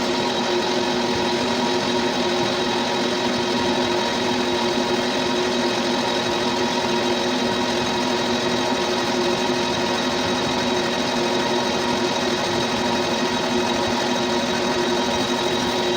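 Metal lathe running steadily while machining a belt pulley: a constant hum with a steady high whine and no change in speed.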